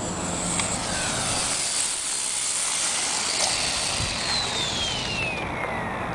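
450-size radio-controlled helicopter spooling down on the ground: its rotor noise fades, and a whine falls steadily in pitch over the last two seconds as the rotor slows.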